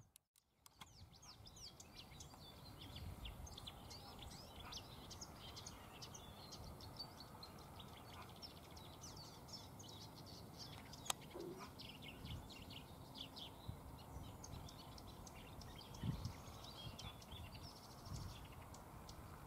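Marsh warbler singing: a fast, varied, almost unbroken run of chattering high notes, starting about a second in. A single sharp click cuts through about halfway.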